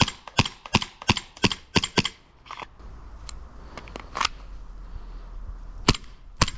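Propane-powered gas blowback airsoft pistol, an M17 replica, firing a quick string of about seven sharp shots, about three a second, each with the snap of the slide cycling. Then a pause with a couple of faint clicks, and two more shots near the end.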